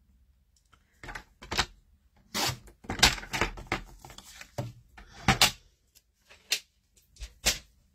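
Sliding-blade paper trimmer cutting a strip of cardstock, with a run of a dozen or so short, sharp clicks and knocks at irregular spacing as the blade carriage is worked along its track and the card is shifted on the base.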